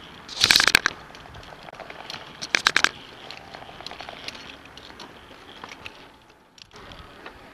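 Two short bursts of rapid clattering, crackling clicks about two seconds apart, as the rope netting and climbing gear rub and knock right against the head-mounted camera's microphone while crossing a net bridge.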